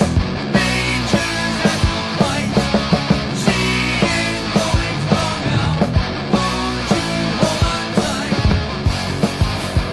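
1980s heavy metal band playing a song: a full band of electric guitar, bass and drums, with drum strikes landing in a steady driving beat.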